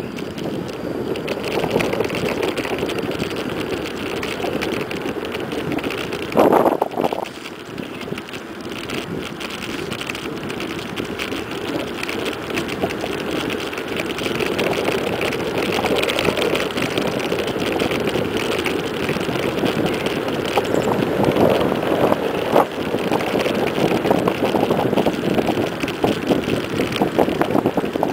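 Wind rushing over the microphone and the rolling rattle of a mountain bike coasting fast downhill on asphalt. A louder burst comes about six and a half seconds in, and sharper knocks and clatter come through in the last several seconds.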